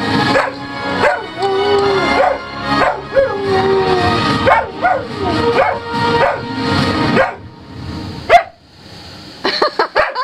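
Samoyed howling along to a song, its voice gliding up and down over the tune. The music stops about seven seconds in, and the dog gives a few short rising yips near the end.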